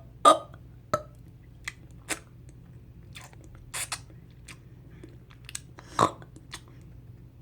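Short, wet mouth clicks and smacks close to the microphone, about eight scattered ones. The loudest comes just after the start and another about six seconds in, with a brief rustle in between.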